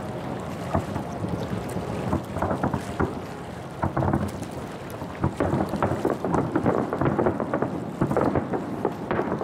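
Aerial firework shells bursting: scattered booms at first, then a dense, rapid volley from about five seconds in.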